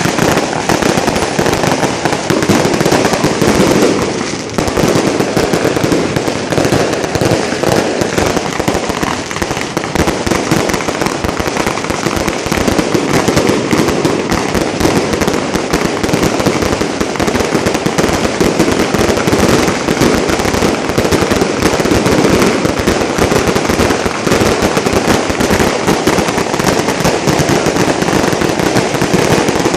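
Fireworks going off in the street: a dense, unbroken barrage of rapid firecracker bangs and crackles, loud and continuous, with only a brief dip about four seconds in.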